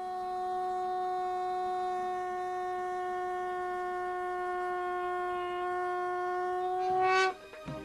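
One long blown note on a horn-like wind instrument, held at a steady pitch for about seven seconds. It swells louder and brighter just before it cuts off sharply.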